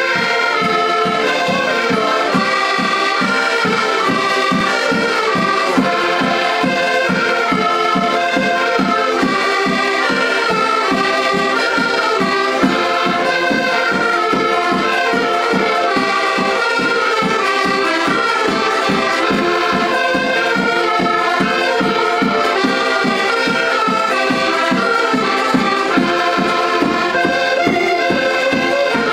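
Several diatonic button accordions playing a lively Portuguese folk tune together, with a steady quick bass pulse of about three beats a second.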